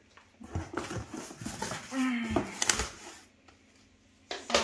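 Plastic wrapping and cardboard packaging rustling and crinkling as the parts of a new vacuum cleaner are handled in the box, with a short whine about two seconds in. The handling sounds stop near the end, then start again.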